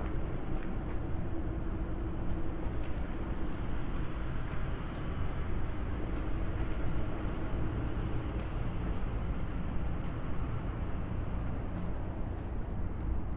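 Steady low rumble of city road traffic, with faint scattered clicks.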